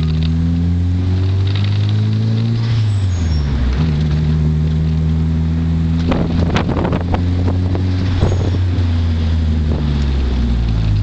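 Turbocharged 2.0-litre four-cylinder of a 1998 Mitsubishi Eclipse Spyder GST, heard from inside the cabin. The engine climbs in pitch under acceleration, then drops at a gear change about three seconds in. About six seconds in a rush of air comes from the Greddy blow-off valve as boost is vented off the throttle.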